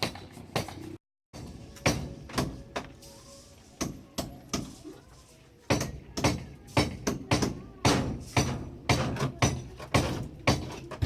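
Repeated hammer blows on a building site, sharp strikes with a short ring after each: irregular at first, then a steady beat of about two blows a second from about halfway through.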